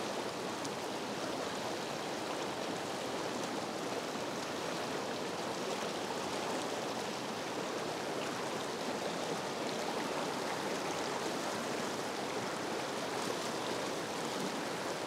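Fast, high-gradient river run rushing over rocks: a steady, even roar of whitewater.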